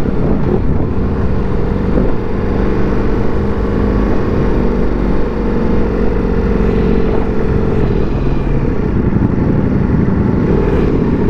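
Motorcycle engine running steadily at low road speed, with a low rumble beneath.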